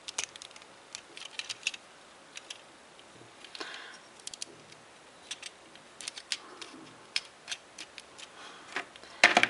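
Plastic Lego bricks clicking and rattling as a small Lego vehicle model is handled and its parts moved by hand: scattered light clicks, with a louder burst of clicks near the end.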